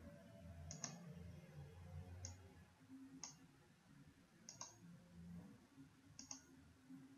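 Faint computer mouse clicks: five short clicks spread over about six seconds, several with a quick second tick right after, over a low hum.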